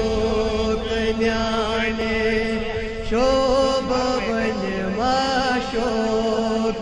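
Male voices chanting a Kashmiri naat, a devotional poem sung in praise of the Prophet, into a microphone. The melody moves in long held notes with ornamented bends, and new phrases begin about a second, three seconds and five seconds in.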